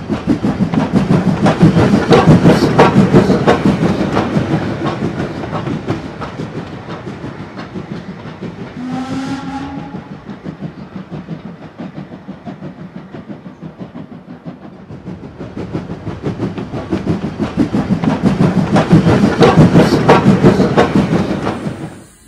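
OO gauge model steam train running, its wheels clicking rapidly over the rail joints, louder twice as it passes close. A short rising whistle sounds about nine seconds in.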